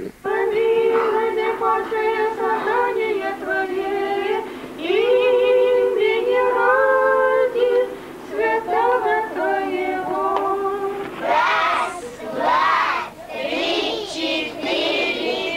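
Women's voices singing an Orthodox church chant in long held notes. About eleven seconds in it gives way to children's voices.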